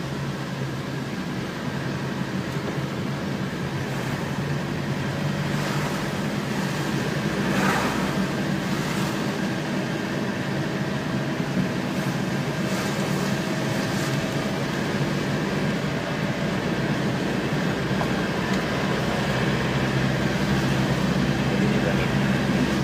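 Steady engine drone and tyre noise heard from inside a moving vehicle on a wet road, with a few faint brief swishes.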